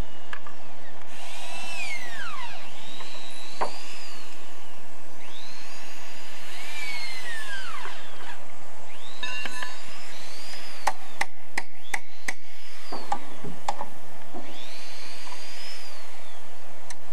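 Electric power tool cutting wood: three times its whine rises in pitch and then drops as it takes the load. Between the second and third cuts comes a run of sharp hammer blows, about three a second.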